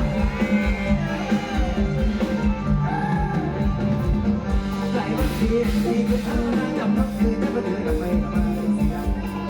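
Live band music with a steady drum beat, bass and guitar under a wavering melodic line, sung or played.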